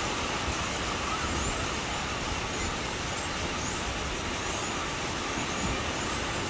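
Surf breaking and washing up a sandy beach, a steady rush.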